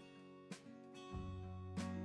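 Background music: plucked string notes, likely acoustic guitar, sounding one after another about every half second.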